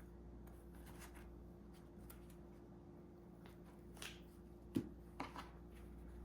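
Faint rustling and light clicks of things being handled, with one sharp knock about three-quarters of the way through and a couple of softer clicks right after it, over a steady low hum.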